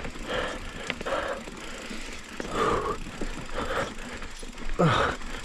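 A mountain biker's heavy, laboured breathing close to a chin-mounted camera microphone, a breath about every second, from hard exertion at high altitude. Under it is the rattle and clatter of the bike on a rough downhill trail, and there is a short voiced grunt near the end.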